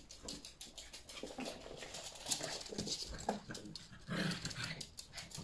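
Yorkshire terrier puppies and their mother at play: short yips and whines mixed with quick clicking of claws on a wooden floor.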